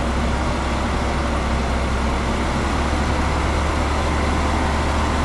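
Heavy diesel machine engine running steadily and loudly, close by, with a deep low hum under a broad mechanical noise.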